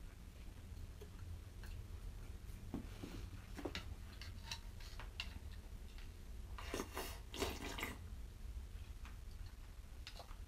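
Sounds of someone eating: light clicks of chopsticks against bowls, then two slurping sips of soup drunk straight from the bowl about seven seconds in, over a low steady hum.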